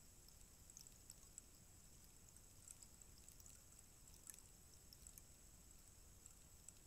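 Long bamboo rainstick trickling: a faint, irregular patter of tiny ticks as its fill falls through the inside of the tube.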